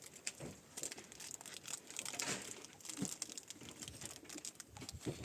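Irregular rustling and crinkling with scattered light clicks and taps, like material being handled.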